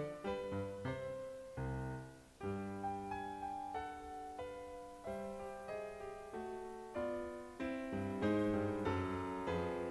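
Background piano music: a run of struck notes, each fading away, over lower bass notes.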